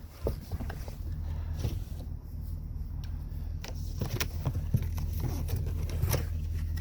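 Knocks and scrapes of a boxed wheel being handled, heard over a steady low hum.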